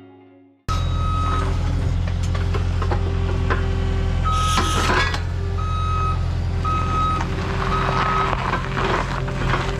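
Caterpillar skid steer's diesel engine running while its reversing alarm beeps in repeated half-second tones as it backs up. A few metal clanks sound over it, the loudest about halfway through.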